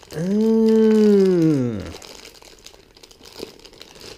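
A long drawn-out wordless vocal sound from a man, lasting about two seconds, rising a little in pitch and then sliding down. After it come fainter crinkles from a clear plastic bag being handled and opened.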